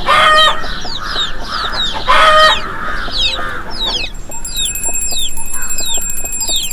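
Chickens: chicks peeping in repeated short falling cheeps over a hen's clucking, with two louder hen squawks, one right at the start and one about two seconds in. Near the end a high, steady ringing tone of music comes in under the peeping.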